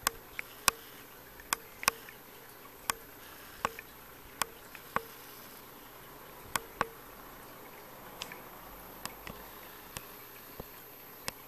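Sharp, irregular clicks and pops, a dozen or more in a few seconds, over a steady aquarium hiss: juvenile silver dollar fish snapping at food in the tank.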